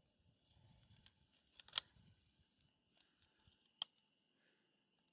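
Near silence, with a faint low rumble and a few short sharp clicks, the loudest about two seconds in and another near four seconds in.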